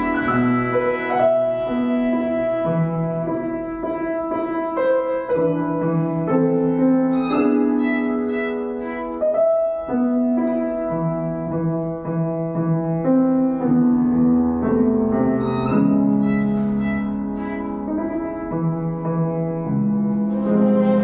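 A bowed string instrument playing a slow, sustained melody with piano accompaniment.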